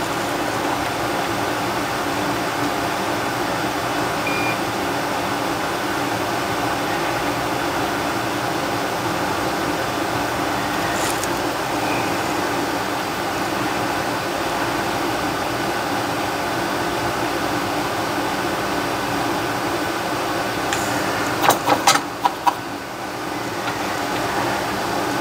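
A steady, even machine whir like a fan or air conditioner. About three-quarters of the way through comes a quick run of sharp clicks.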